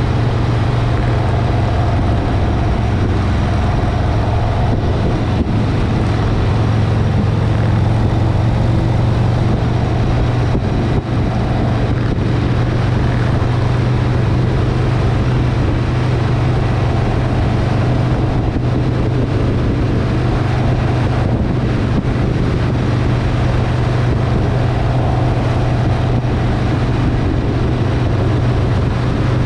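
Harley-Davidson V-twin motorcycle engine running steadily on the road, a constant low engine note over a rushing haze of noise.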